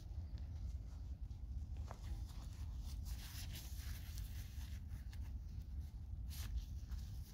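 Gloved hand scraping and sifting loose soil, with scattered scratchy rustles and a sharper scrape about two seconds in and again near the end, over a steady low rumble.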